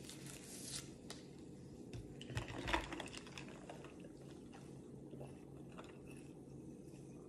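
Faint crinkling and small clicks as a straw is unwrapped and put into a stemmed wine glass of drink, with a cluster of knocks and clinks about two to three seconds in, then quiet sipping through the straw.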